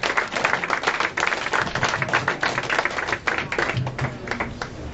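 Audience applauding, with dense clapping that thins out near the end.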